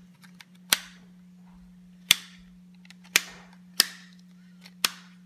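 Plastic ball-shaped twisty puzzle (a ball cube) being turned by hand, giving five sharp, loud clicks at irregular intervals as its layers snap round, with a few fainter ticks between; a steady low hum runs underneath.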